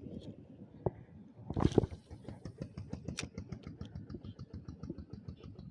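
Fishing reel being cranked: a fast, even run of ticks, with a louder noisy burst about a second and a half in.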